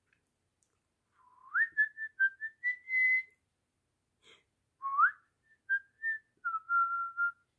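A person whistling two short phrases of pure notes. Each opens with a quick upward slide, and the second ends on a longer held note.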